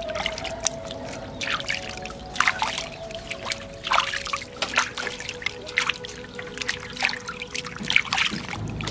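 Water splashing and sloshing in a stainless steel bowl as hands scrub raw pig feet, in quick irregular splashes.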